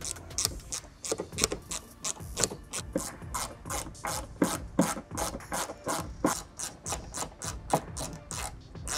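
Small hand ratchet with an extension clicking in quick, uneven strokes as it drives the rear bumper's fastening screws in the wheel arch.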